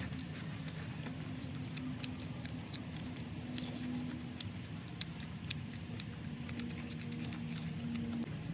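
Close-up chewing and eating of chicken gizzard: irregular small wet clicks and crunches from the mouth, over a steady low hum.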